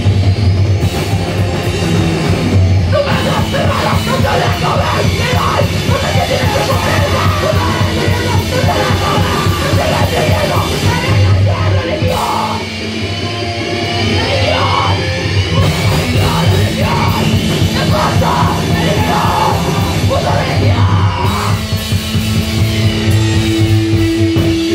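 Live rock band playing loud: electric guitar and drum kit, with a woman singing into the microphone, her voice coming in about three seconds in.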